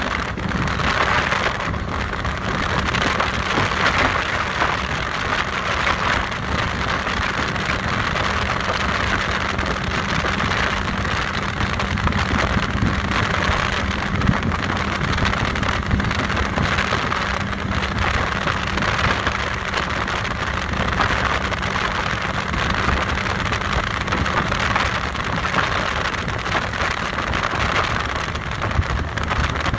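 Performance powerboat's engine running steadily at speed, a constant low drone under a continuous rush of wind and water hiss.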